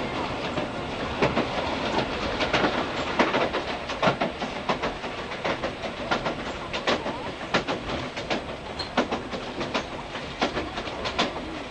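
Riding inside an old JNR passenger coach hauled by a pair of DE10 diesel locomotives: a steady running rumble with frequent sharp clicks and knocks from the wheels over rail joints.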